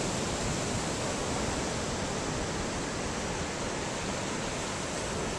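Ocean surf breaking and washing onto a sandy beach: a steady rush of water noise.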